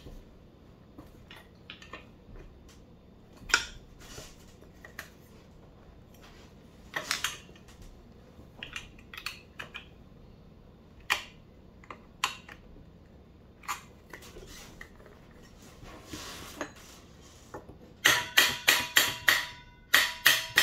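Screwdriver working at the plastic fan shroud on the back of a Leader Ecoplus 230 pump motor to pry it off: scattered clicks and knocks. Near the end comes a quick run of sharp, ringing clicks and clatter as the shroud comes free.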